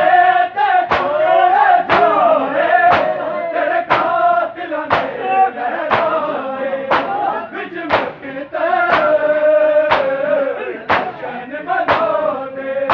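A crowd of men doing matam, bare-chested, their hands slapping their chests together about once a second in a steady beat, under male voices chanting a noha.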